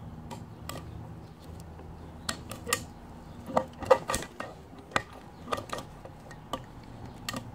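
Sharp metallic clinks and clicks of valve springs and retainers being handled on a slant-six cylinder head during a valve stem seal job, a dozen or so separate strikes, sparse at first and busiest from about two seconds in, over a low steady hum.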